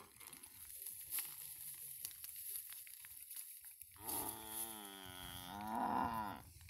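Water buffalo bellowing: one long call starting about four seconds in, wavering in pitch and lasting over two seconds, after a few seconds of faint rustling.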